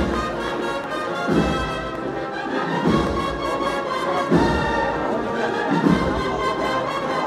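Brass band playing a slow processional march of sustained chords, with a bass drum stroke about every second and a half.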